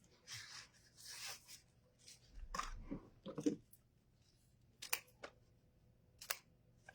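Ribbon being handled and rustled, with a few short sharp clicks.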